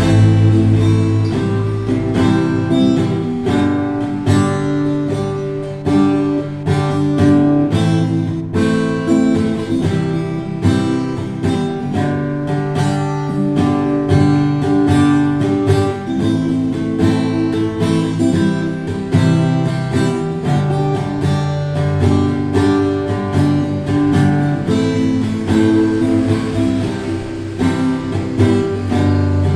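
Acoustic guitar played continuously, without singing.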